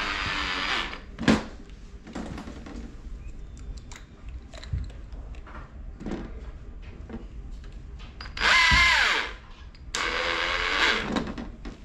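Handheld power drill running in short bursts: one run stops about a second in, followed by a sharp click, and two more short runs come near the end, the first winding down in pitch as it stops. Light knocks and handling noise between the runs.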